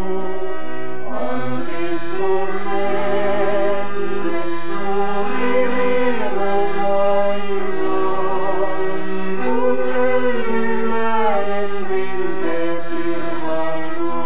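A singer with a wavering vibrato performs a Christian song to piano-accordion accompaniment, with long held notes over steady accordion chords.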